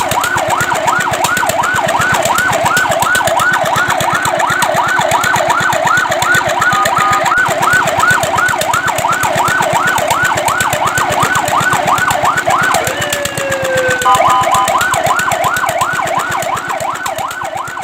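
Fire truck siren on a fast yelp, sweeping rapidly up and down several times a second. About thirteen seconds in the yelp breaks off into a short falling tone for about a second, then resumes.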